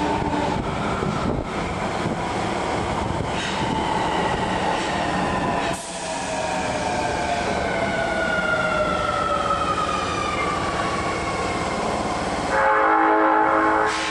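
Osaka Metro subway train braking into the platform, its motor whine falling steadily in pitch over the rumble of the wheels. Near the end, a loud, steady horn-like blast about a second and a half long.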